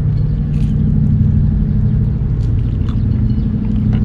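A steady low mechanical drone with a couple of constant low tones in it, like a machine or engine running continuously. A few faint crisp crunches of a fried chicken nugget being chewed sit on top of it.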